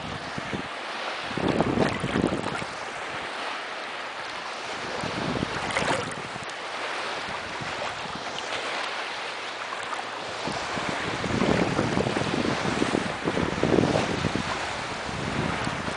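Choppy river water sloshing and splashing around a kayak, with wind buffeting the microphone; the water surges louder a few times, around 2 s, 6 s and from about 11 to 14 s.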